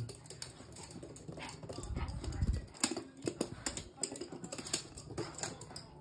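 Small dogs' claws clicking and tapping on a hard floor as toy poodles scamper and play, with a few short dog vocal sounds mixed in.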